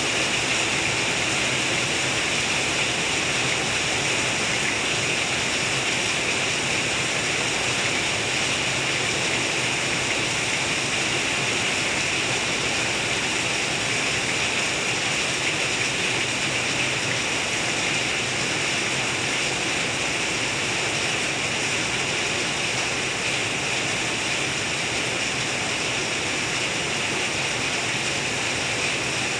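Heavy rain, with runoff pouring off the edge of a ribbed roof in many streams and splashing down, making a steady rushing hiss.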